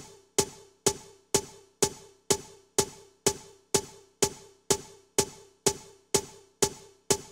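Electronic music: a single pitched percussive note repeating evenly about twice a second, each hit ringing briefly and dying away.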